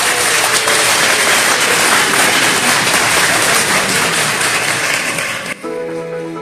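A large crowd applauding. About five and a half seconds in, the applause cuts off and soft background music with sustained notes begins.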